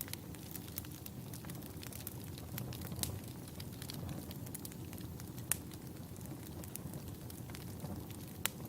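Logs burning in a fireplace: a steady low rumble of flames with frequent sharp crackles and pops, a few louder pops about three, five and a half and eight and a half seconds in.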